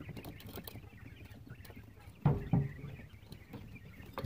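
Coturnix quail stirring in their pen: light scattered clicks and pattering, with two louder knocks a little over two seconds in.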